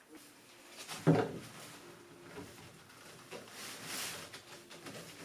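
A single sharp knock about a second in, then quieter clatter and a brief scraping rustle as PVC drain pipe and fittings are handled and pushed together for a test fit.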